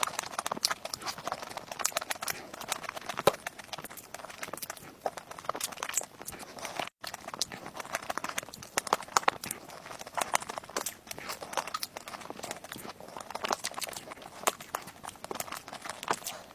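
Close-miked chewing and lip-smacking of someone eating cake: a dense, irregular run of small wet clicks and smacks, broken by a brief drop-out about seven seconds in.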